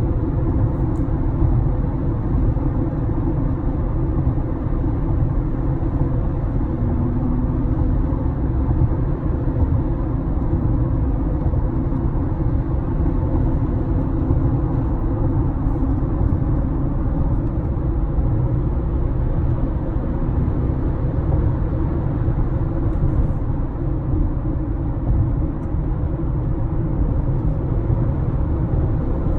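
Steady road and drivetrain rumble inside a moving 2018 Honda CR-V's cabin, with a faint buzzing rattle from the dashboard, which the owner finds more frequent after the car has sat in the sun in warm weather.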